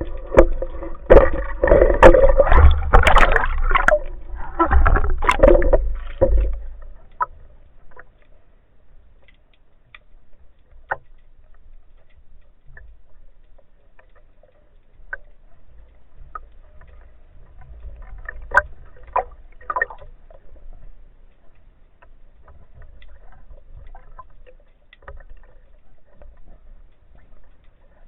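Water gurgling and sloshing around the diver's camera, loud and uneven for about six seconds. Then it turns quiet, with scattered faint clicks and a small cluster of clicks about two-thirds of the way through.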